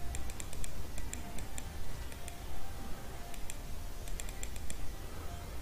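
Computer keyboard typing: short runs of light key clicks, several a second, with pauses between, over a faint low hum.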